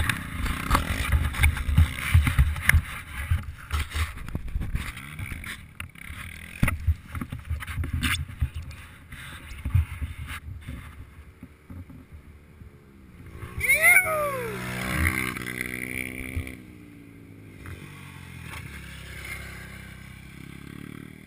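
Low thumps and knocks of wind buffeting and handling on a helmet camera's microphone. About two-thirds of the way through, a dirt bike engine revs with a falling pitch, runs steadily for a couple of seconds, then fades.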